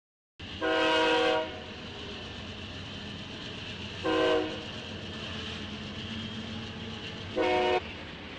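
Freight locomotive's air horn sounds a chord three times, one long blast followed by two short ones, as the train rolls past. The steady rumble of the locomotives and cars passing continues between the blasts.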